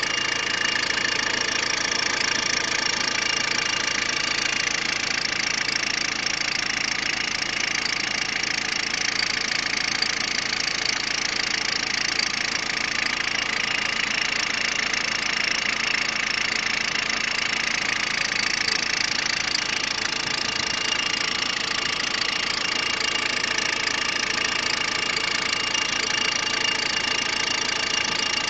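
Peugeot 106 engine idling steadily, with an even clatter.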